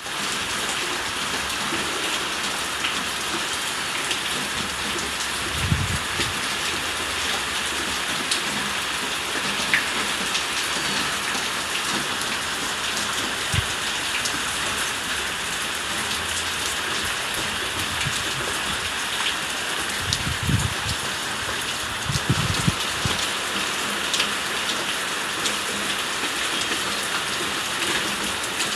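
Steady rain falling, an even hiss of drops on a surface, with a few brief low thuds now and then.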